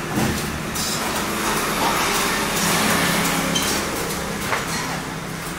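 Street traffic running past, with people's voices in the background.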